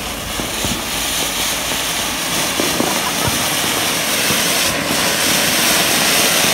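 Ground fountain firework (anar) spraying a column of sparks with a steady, loud hiss that slowly builds, with a few faint crackles.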